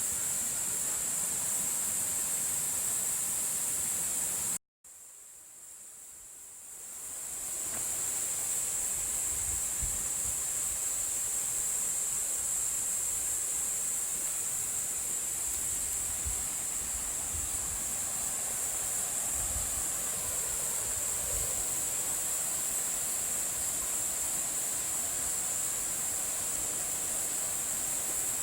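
Steady high-pitched insect chorus with a faint hiss under it; it cuts out abruptly about five seconds in and fades back over a couple of seconds. A few low thumps come through in the middle stretch.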